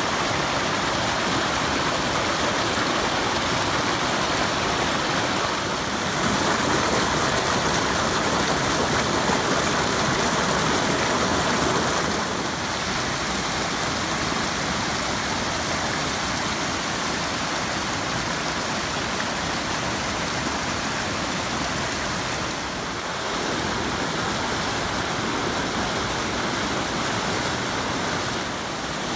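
Floodwater in a swollen creek rushing and churning over rock slabs as whitewater: a loud, steady rushing that shifts slightly in level a few times.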